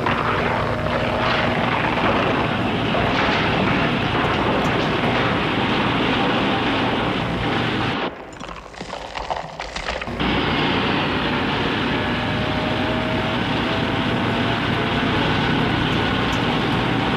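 Loud, steady machine sound effect, a low rumble under a hiss. It breaks off about eight seconds in and starts again two seconds later.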